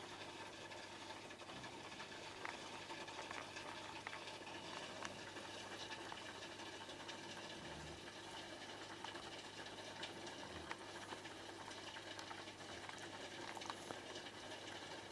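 Faint, steady bubbling and trickling of aquarium water stirred at the surface by the tank's filter pump, with small scattered patters and a low steady hum underneath.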